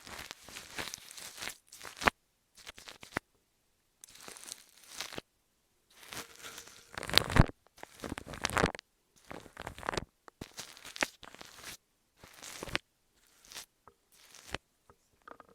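Close-miked ASMR handling noises: a dozen or so short bursts of crinkling, tearing-like noise with small clicks, separated by brief silences.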